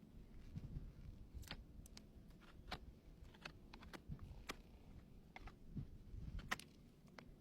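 Faint hoof trimming: scattered sharp clicks and soft low knocks, the loudest about six and a half seconds in.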